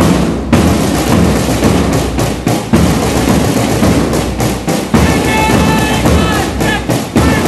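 Large marching bass drum beaten in a steady march beat. A brief high-pitched sound sits on top of it about five seconds in.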